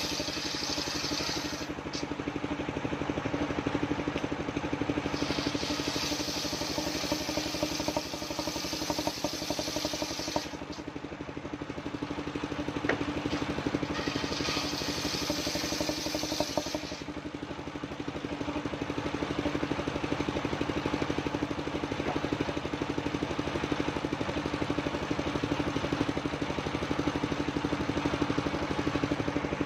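Engine of a mobile circular sawmill running steadily, with a hissing saw cut through old coconut wood in three stretches: at the very start, from about 5 to 10 seconds in, and again from about 14 to 17 seconds in. After that the engine runs on without cutting.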